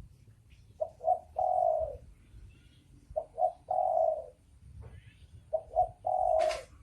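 Spotted dove cooing, three times: each call is two short coos followed by one longer drawn-out coo, repeating about every two and a half seconds. A brief scratchy noise sounds during the last coo, and faint chirps of small birds are heard between calls.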